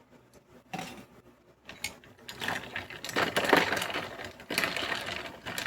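Ice cubes clinking and rattling in a glass for an iced latte, a short clatter near one second and then a dense run of small clicks from about two seconds in.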